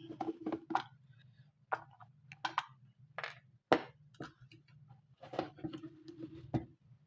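Light clicks, taps and knocks from hard objects being handled and set down during work on a disassembled electric kettle, over a steady low mains hum.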